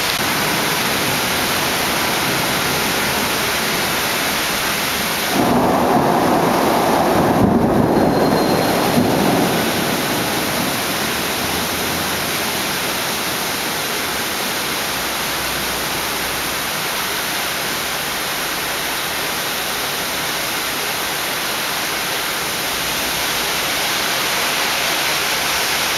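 Steady rain hissing, with a rumble of thunder that starts about five seconds in and lasts about four seconds.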